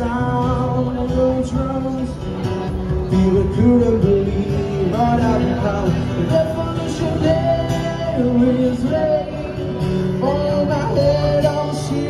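Background music: a song with a singing voice over acoustic guitar.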